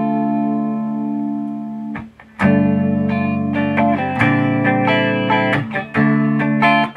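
Electric guitar played through an Electro-Harmonix Small Clone chorus pedal set for a subtle chorus: one chord rings for about two seconds, then a run of strummed chords follows, the guitar a little out of tune.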